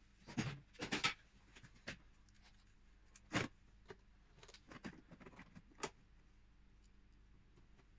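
Plastic knocks, clicks and rustling as a ribbed air intake hose is handled and pushed into place in a car's engine bay. A cluster of knocks comes in the first second or so, a sharper knock about three and a half seconds in, and a few lighter clicks up to about six seconds in.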